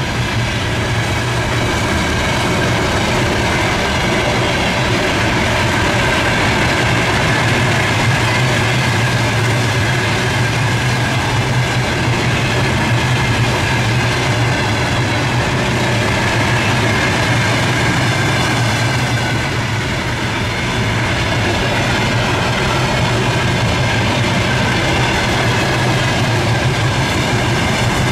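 Freight train rolling past with a steady, unbroken rumble of wagon wheels on the rails.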